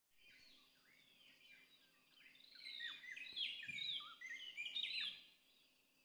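Birds calling: a busy run of overlapping whistles and chirps, many sliding down in pitch, loudest from the middle until about a second before the end. Underneath runs a faint, steady, high insect trill.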